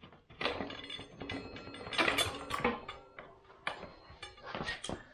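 Motorcycle front axle being worked out through the fork legs and wheel hub by hand: metal-on-metal scraping and clicking, heaviest in the first few seconds, then a few separate clicks and knocks.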